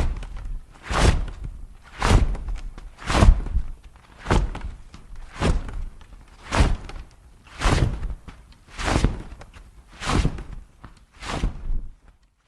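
Giant-hero footstep sound effect: eleven heavy, booming stomps, evenly spaced about a second apart, each with a short echoing tail.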